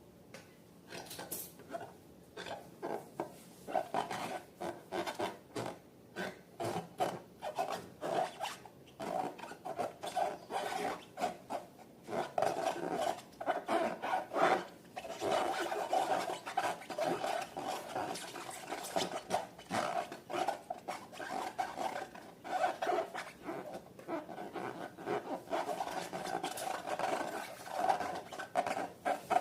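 Slime being stirred and mixed: rapid, repeated scraping and rubbing strokes, sparser at first and nearly continuous from about twelve seconds in.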